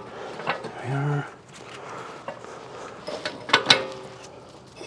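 Steel ball joint press parts and hand tools clicking and clinking as the press is set up against a steel axle knuckle, with one sharp metallic clank about three and a half seconds in that rings briefly.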